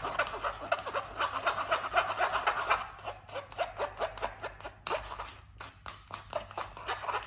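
A silicone spatula scraping and pressing mango puree through a stainless-steel mesh sieve in quick repeated strokes. The strokes are fainter in the second half.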